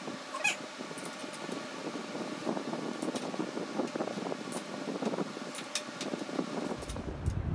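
Shop towel rustling and rubbing against a hand as it unscrews a spring-loaded Sportster fork tube cap, with a few faint clicks. A low rumble comes in near the end.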